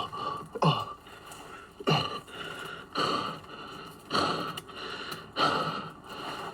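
A man's heavy, breathy exhales and gasps, about one a second.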